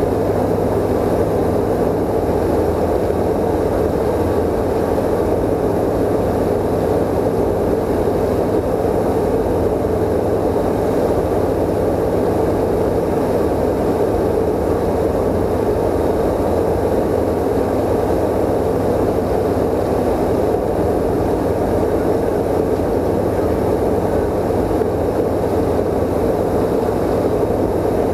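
CSA PS28 Cruiser's Rotax 912 flat-four engine and propeller running steadily in cruise flight, heard inside the cockpit as an even drone with airflow noise.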